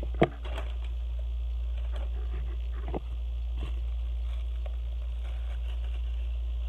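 Plastic packaging crinkling and rustling as it is handled, with a sharp knock just after the start and a second, softer one about three seconds in, over a steady low hum.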